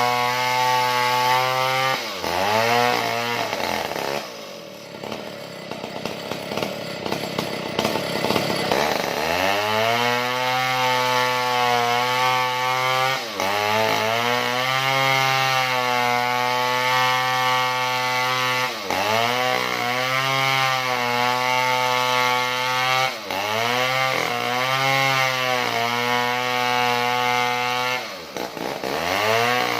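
Small two-stroke chainsaw at high revs ripping a log lengthwise. The revs dip briefly and recover several times, with a longer stretch of low revving about four seconds in before it climbs back to full speed.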